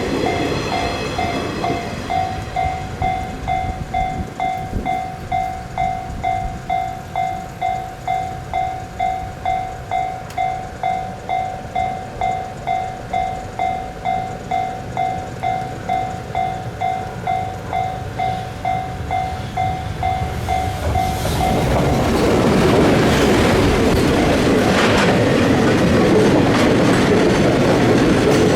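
Japanese level crossing warning bell ringing in an even rhythm of about two strokes a second. About twenty seconds in, the bell is covered by the louder rumble and clatter of a train passing over the crossing.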